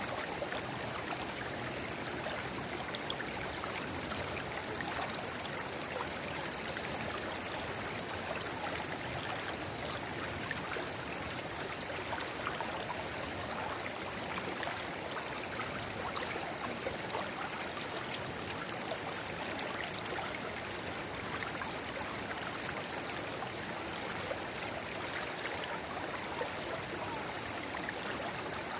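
Shallow river water babbling steadily over stones, with a small spring-fed rivulet trickling into it, a dense, even rush full of small splashes.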